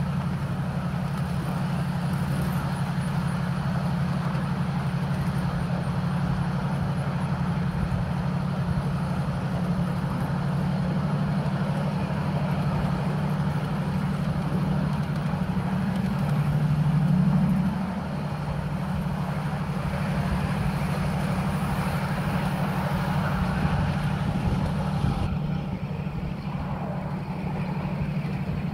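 Ride-on 1/8-scale miniature train running on 7.5-inch gauge track, heard from a passenger car: a steady low drone with continuous wheel-on-rail noise, briefly louder a little past halfway.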